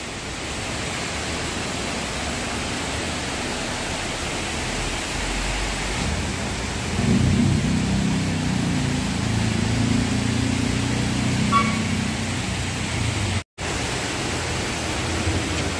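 Ravana Falls pouring down its rock cascade: a steady rushing noise of falling water. From about six seconds in a low rumble joins it for several seconds, and the sound drops out for an instant near the end.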